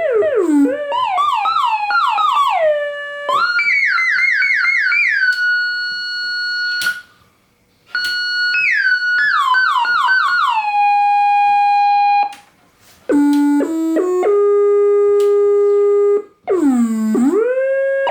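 Yamaha CS-20M monophonic analog synthesizer playing one note at a time: quick runs of notes that bend and glide in pitch, held tones, a brief stop about seven seconds in, then stepped notes and a deep swoop down and back up near the end.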